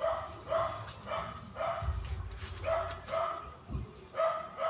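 A dog barking repeatedly, about two barks a second, with a short pause before the last two barks. A low rumble and a single knock come partway through.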